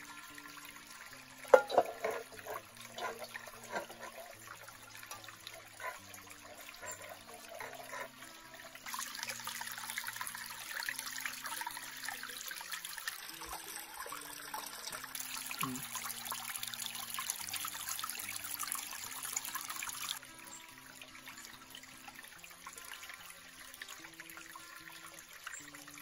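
Small waterfall trickling over rock and into a camping pot as it is filled, the running water growing louder and fuller from about nine seconds in until about twenty seconds. A sharp knock about a second and a half in; soft background music with slow held notes underneath.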